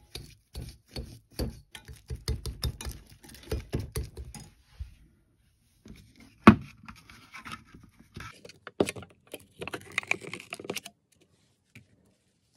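A wire whisk beating cream cheese and spices in a glass bowl, its metal tines clicking and knocking quickly against the glass for about five seconds. After a pause comes one sharp crack, then crinkly rustling as the foil lid of a plastic pot of double cream is peeled back.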